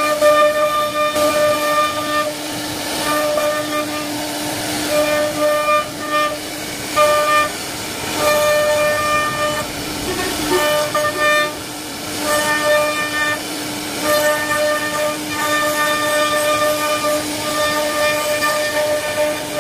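CNC router spindle running with a steady whine as its bit carves a wooden panel. The whine's brighter upper tones drop in and out every second or so as the cut changes, over a hiss of cutting.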